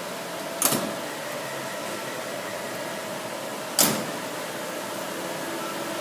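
Two sharp bangs about three seconds apart over a steady hum: a fire truck's doors being shut. The second bang is the louder.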